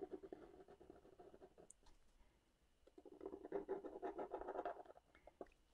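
Faint scratching of a fine-tip ink pen drawing on watercolour paper, briefly at the start and again in a longer stretch from about three seconds in to about five.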